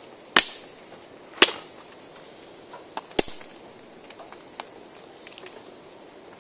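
A hand digging tool chopping into the soil: three sharp strikes, the first two about a second apart and the third after a longer pause, followed by a few faint taps.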